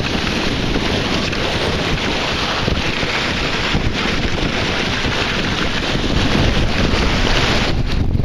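Wind buffeting the microphone hard, with water rushing and splashing along the hull of a Snipe dinghy sailing fast in strong, gusty wind. The noise is loud and unbroken.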